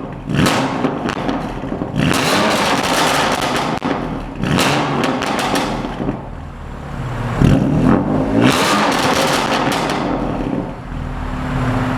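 BMW S55 twin-turbo straight-six revved hard through an aftermarket exhaust, several times in a row, with sharp crackling bursts.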